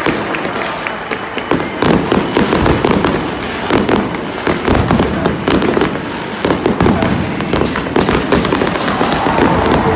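Aerial fireworks going off in rapid, irregular volleys of sharp bangs and crackles, thickening into a dense barrage about a second and a half in.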